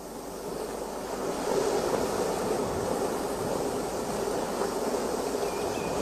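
Ocean surf: a steady rush of breaking waves that fades in from silence and then holds level, a recorded wave sound rather than the scene pictured.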